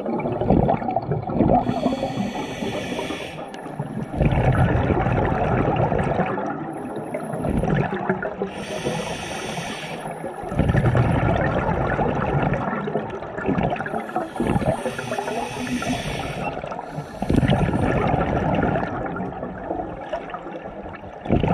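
Scuba diver breathing underwater through a regulator. A hissing inhale comes every few seconds and is followed by a longer gurgling rush of exhaled bubbles, over several breaths.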